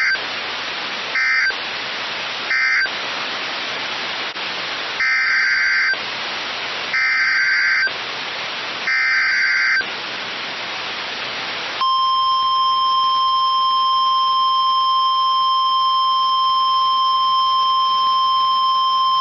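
NOAA Weather Radio alert signalling over a hiss of radio static: three brief screechy digital data blasts, a pause, then three longer ones (the SAME header coding the coming alert), followed about twelve seconds in by the steady, piercing warning alarm tone that precedes a tornado warning.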